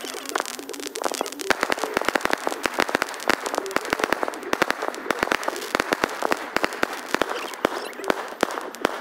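Aerial fireworks crackling and popping, many sharp reports in quick, irregular succession.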